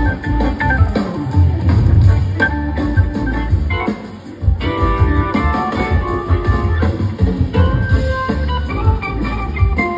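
Live band playing an electric guitar solo over Hammond organ, with bass and drums underneath. The music briefly drops back about four seconds in, then picks up again.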